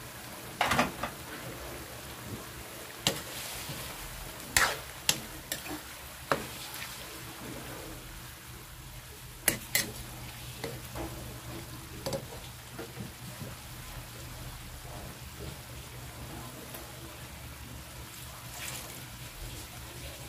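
Metal spoon stirring chicken innards and small unlaid eggs simmering in a wide metal wok, with sharp clinks and scrapes of the spoon against the pan, mostly in the first half. Under it is a steady low simmer.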